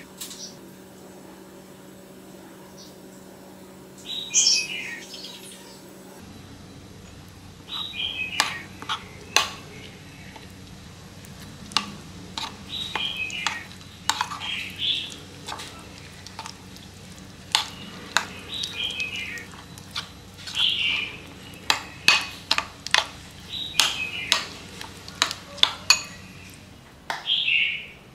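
Metal spoon clinking and scraping against a ceramic bowl while stirring a thick sauce-and-flour marinade, sharp clinks coming in quick runs from about a third of the way in. A small bird chirps over it again and again in short falling phrases.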